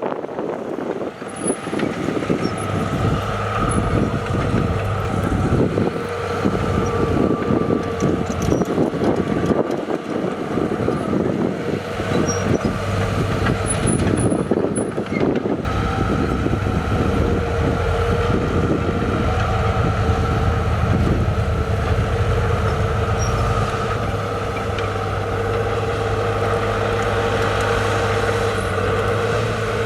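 Heavy diesel earthmoving machinery running steadily, with a low engine drone throughout. The sound changes abruptly about halfway through.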